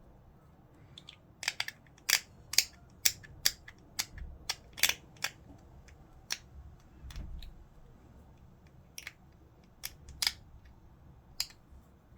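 Hobby clippers snipping plastic miniature parts off the sprue: a rapid run of sharp clicks in the first half, then scattered single snips.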